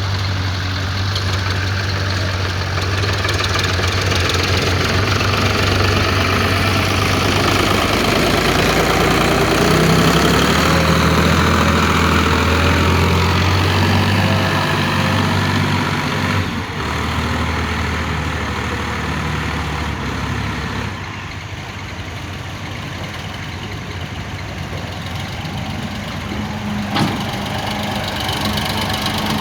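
An engine running steadily, its low hum shifting pitch a few times, with a single sharp click near the end.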